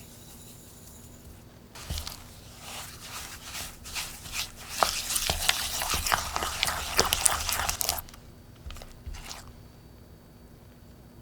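Crinkling and tearing of a wrapper or packaging: a run of dense, irregular crackles that starts about two seconds in, is loudest from about five to eight seconds, and has a last few crackles near nine seconds.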